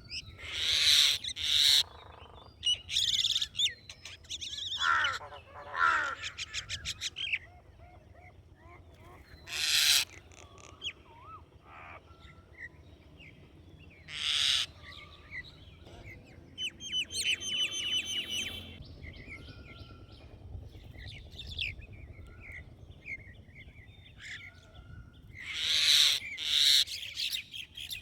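Wild birds calling: loud harsh squawks every few seconds, with many short chirps and a rapid trill in between.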